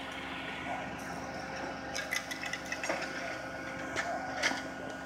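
Steady hum of vehicles idling and traffic, with a few short clicks and knocks from about two to four and a half seconds in.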